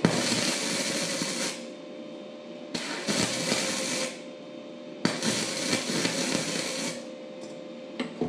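Weldpro 155 MIG welder's arc crackling in three bursts of one to two seconds each, with short pauses between them: short stitch welds being laid down.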